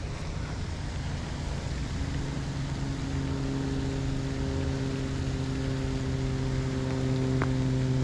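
An engine running at a steady pitch, coming in about two seconds in and slowly growing louder, over a steady rushing background.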